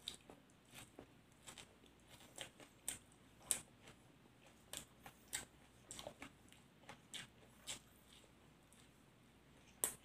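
A person chewing raw leafy vegetables close to the microphone: irregular crisp crunches every half second or so, the loudest about three and a half seconds in.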